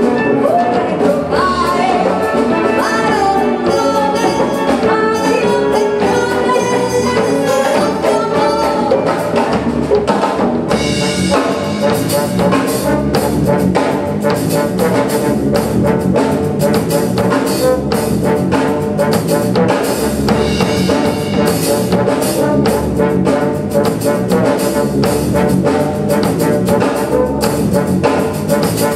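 Wind band with brass and drums playing a song. A woman sings over it at first, and about ten seconds in the full band takes over in an instrumental passage led by trumpets and trombones with a steady drum beat.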